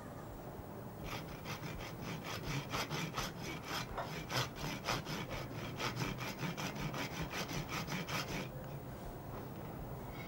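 Butcher's hand saw cutting through pig bone to take the forehand (shoulder) off a side of pork, in steady back-and-forth strokes of about three or four a second that stop about eight seconds in.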